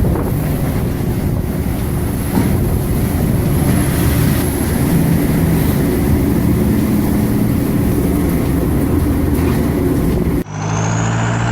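Loud, steady rushing wind with a heavy rumble buffeting the microphone in a dust devil. About ten seconds in it cuts off abruptly to a steady low engine hum.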